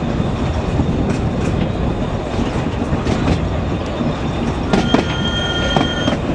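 Narrow-gauge train heard from an open-sided carriage: a steady rumble of the wheels on the track with scattered clicks from the rail joints. About five seconds in, a high, steady squeal of several tones sounds for just over a second.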